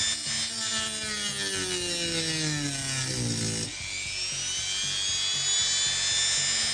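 Rotary tool with a cut-off wheel cutting a slot into a stripped screw head, to make it turnable with a flat screwdriver. Its high motor whine slides steadily down in pitch under load, jumps back up about halfway through, then slowly sinks again.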